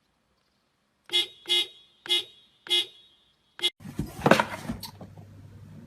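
Five short, pitched, horn-like toots after a moment of silence, the last a little later than the rest. Then a stretch of noisy clattering with a low hum.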